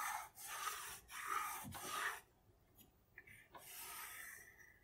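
Pencil scratching along the edge of a steel ruler on a walnut board, drawn in a few short strokes, then a pause, then one longer stroke near the end.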